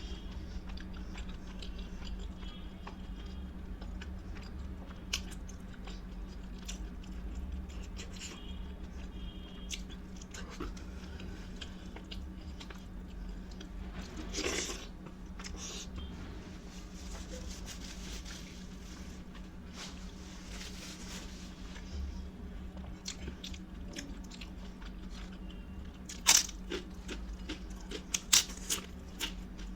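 Close-up chewing and biting of food, with small wet mouth clicks and crunches. Several louder sharp crunches come near the end, over a steady low hum.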